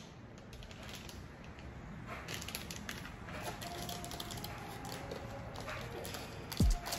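Plastic snack wrapper crinkling and crackling as it is handled and torn open. Near the end comes a short, loud boom that sweeps quickly downward in pitch.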